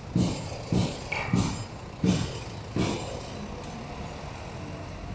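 Footsteps on pavement, five steps at a steady walking pace that stop about three seconds in, over a steady hum of street traffic.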